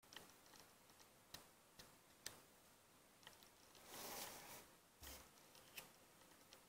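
Faint handling noise of a plastic toy minifigure and its cardboard box: a few light, separate clicks and taps, with a short rustle about four seconds in as the box is pushed aside.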